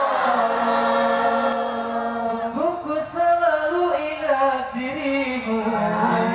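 Many voices singing a sholawat, an Islamic devotional song in praise of the Prophet, together in long held notes.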